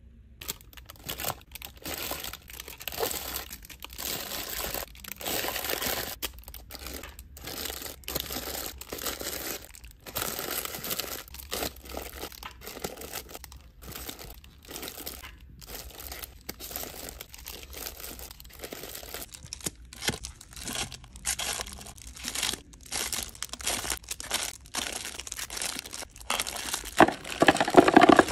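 Plastic snack wrappers and bags crinkling as they are handled and set into clear plastic organizer bins, in irregular rustles. Near the end, foil-wrapped chocolates poured from a bag clatter into a plastic bin, the loudest part.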